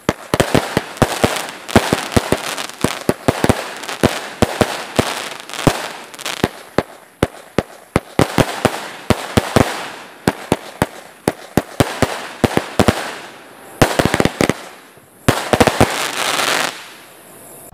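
A 49-shot firework cake firing: a rapid, irregular run of sharp bangs as the shots launch and burst, with crackling between them. Near the end come dense flurries of crackle, and the barrage stops shortly before the end.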